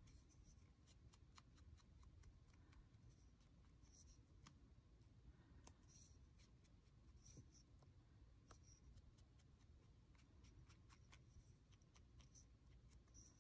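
Very quiet sound of paper being inked by hand: a few short, scratchy strokes and scattered faint clicks over a low room hum.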